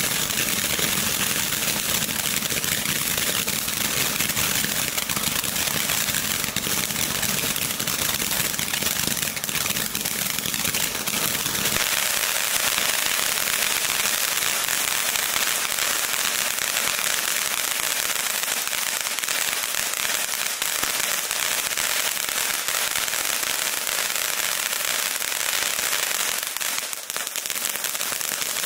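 A 200-gram fountain firework burning steadily, a continuous hissing spray with dense crackling. The deeper part of the sound drops away about twelve seconds in, and there is a brief dip near the end.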